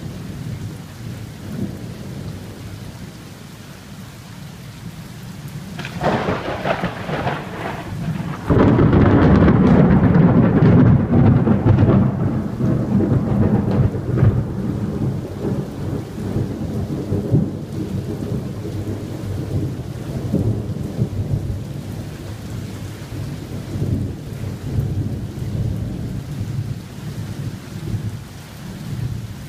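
A long roll of thunder over steady rain. The rumble swells about six seconds in, jumps suddenly loud a couple of seconds later and holds for a few seconds, then rolls on as a fading low rumble.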